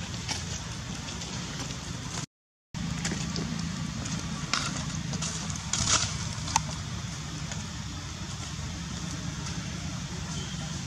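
A steady low hum with an even hiss, broken by a few sharp crackles between about four and seven seconds in. The sound cuts out completely for about half a second a little over two seconds in.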